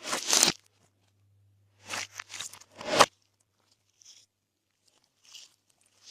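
Glossy slime being pressed and folded by hand, giving off short bursts of crackly pops: one right at the start, a quick run ending in the loudest pop about three seconds in, then two faint ones.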